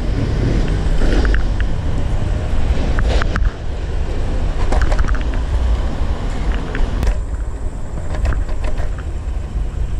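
Segway Ninebot ES1 electric kick scooter riding over pavement: a steady low rumble of wind on the microphone and wheels on the road, broken by scattered clicks and knocks as it goes over bumps and cracks.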